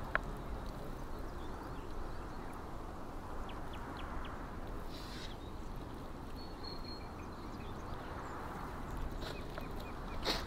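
Ribeye steaks sizzling on a hot cast-iron griddle: a steady hiss with scattered small pops.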